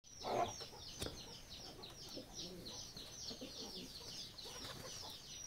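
Birds calling: a quick run of short, high, falling chirps, several a second, over fainter low calls, with a louder low call right at the start.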